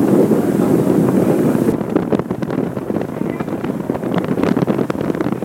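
Wind buffeting the microphone on a ferry's open deck, over the rushing of the ship's engine and the water. A little under two seconds in, the high hiss cuts off suddenly and the sound turns quieter.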